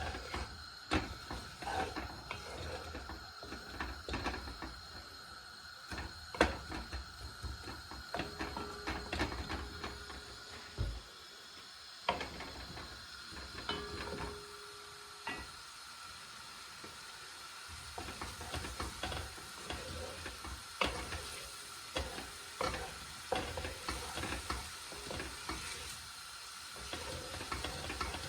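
Onions frying in a little oil in a pot over high heat, sizzling steadily, while a utensil stirs them, knocking and scraping against the pot in irregular clicks.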